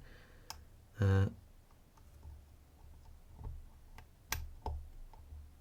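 Faint, sparse clicks and ticks of a dimple flag pick and tension tool working the pins inside a DOM IX HT dimple lock, with a few louder clicks near the end. A short vocal sound about a second in.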